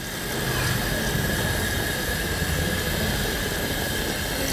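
Steady roar of a gas stove under a cooking pot of ragda, building over about the first second and then holding even.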